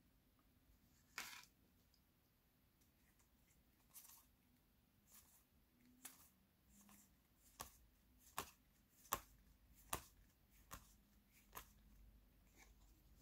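Faint handling of a stack of trading cards: a soft swish about a second in, then about six sharp clicks, a little under a second apart, as cards are flicked out of the pile and set down.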